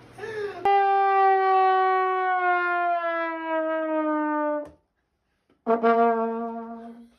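Brass horn sound effect: one long note that slides slowly down in pitch for about four seconds, then after a short break a second, lower note that fades out.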